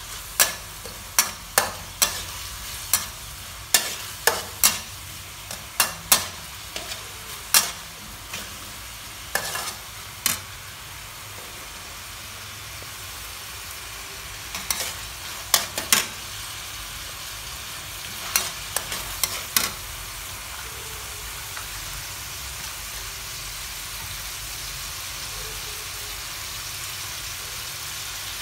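Pork frying in a metal wok with a steady sizzle, while a metal spatula scrapes and clacks against the wok. The clacks come thick and fast through the first third, in two short clusters around the middle and two-thirds through, then stop, leaving only the sizzle, which grows slightly louder.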